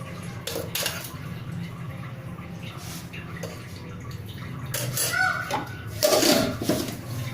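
A few light clicks of a spoon against a steel bowl while spices go into gram flour, over a steady low hum. A short stretch of voice comes near the end.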